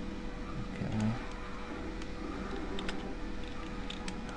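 A couple of computer keyboard key presses, typed one-handed, about three and four seconds in, over a steady low electrical hum. A short low sound comes about a second in.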